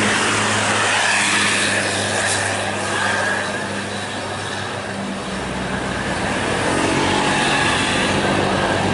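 Passing road traffic: a coach bus goes by close with its engine running. Then a steady mix of bus, car and motorcycle engines, dipping a little midway and building again near the end.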